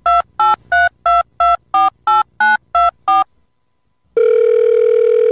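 Telephone keypad touch-tones: ten quick beeps of a number being dialled, about three a second, each a slightly different pair of pitches. After a short pause one long steady tone starts, the ringing tone of the call.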